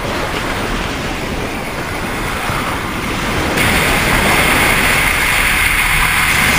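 Steady rush of wind and road noise from a motorcycle cruising at highway speed, picked up by a camera mounted on the bike. About three and a half seconds in, the noise steps up and turns brighter and hissier.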